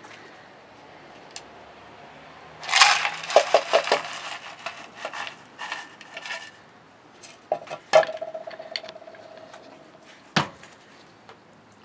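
Lumps of coal clattering and crunching in a chrome ice crusher, densest about three to four seconds in, with scattered crackles after. A sharp metallic clank that rings briefly comes about eight seconds in, and a single knock near the end.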